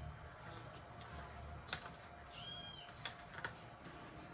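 A cat's short, high meow about halfway through, with a few light clicks and taps as a small circuit board is handled against a cardboard box.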